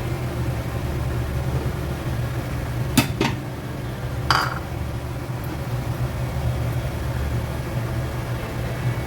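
Kitchenware clinking: two quick clinks about three seconds in and another a second later, over a steady low hum.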